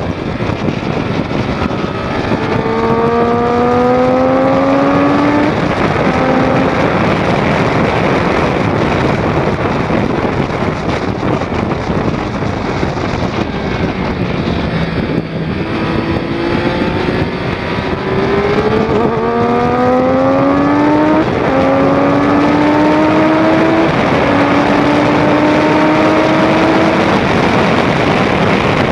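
2006 Triumph Daytona 675's inline-three engine accelerating hard through the gears: its pitch rises in steps, dropping back at each upshift, in two spells a few seconds in and again from about the middle on. Heavy wind rush over the microphone runs underneath.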